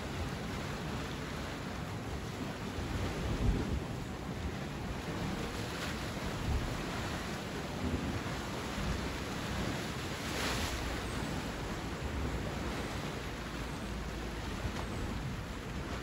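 Sea surf washing steadily, with a low, gusting rumble of wind on the microphone. A brief brighter hiss about ten seconds in.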